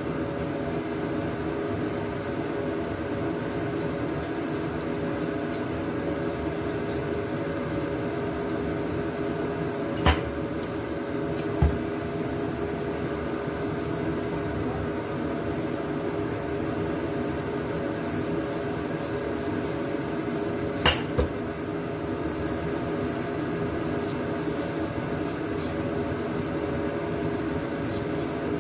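Steady machine hum with a few sharp clicks, two of them close together about two-thirds of the way through.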